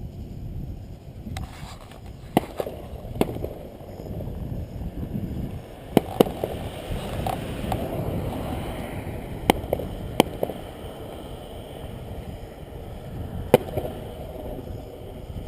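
Fireworks display: about seven sharp bangs of bursting shells at irregular intervals, two of them in quick succession, over a steady low rumble, with a hissing spell in the middle.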